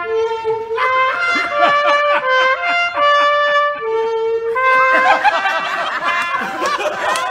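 Trumpet playing a run of short, steady held notes that step up and down in pitch. People laugh over it in the second half.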